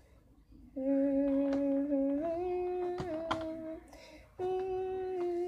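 A girl humming a few long held notes, the tune stepping up in pitch about two seconds in, with a short break before a final held note.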